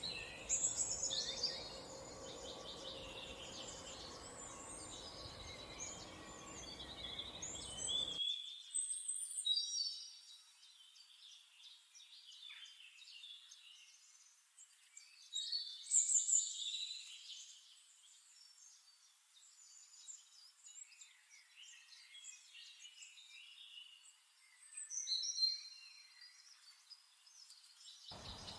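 Birds chirping and singing, many short high calls and trills overlapping, rising and falling in loudness in several bouts.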